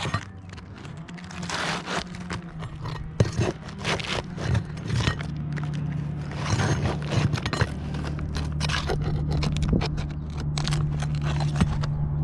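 Irregular scraping, crunching and sharp clicks of brittle roof shingles being pried and worked loose around their nails, with a steady low hum underneath.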